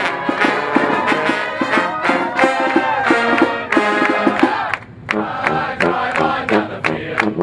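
Marching band music with band members clapping along in rhythm; the music breaks off briefly about five seconds in.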